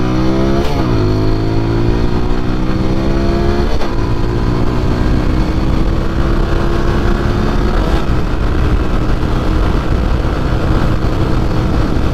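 Motorcycle engine accelerating hard through the gears. The pitch climbs and drops at three upshifts, about a second, four seconds and eight seconds in, then settles at a steady cruise.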